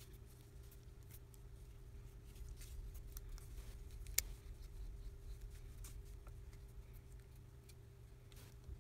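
Faint handling noise of a OnePlus 3T smartphone turned and pressed along its display edges in the fingers, with scattered small clicks and one sharp click about four seconds in, over a steady low hum.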